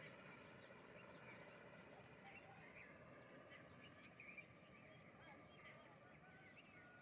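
Faint dusk countryside ambience: a steady high-pitched insect drone with many scattered short bird chirps.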